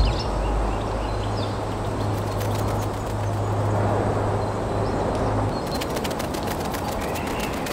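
Nature ambience of steady wind noise with a few bird chirps, over a low steady hum that stops about five and a half seconds in. Just after the hum stops, a rapid run of clicks begins.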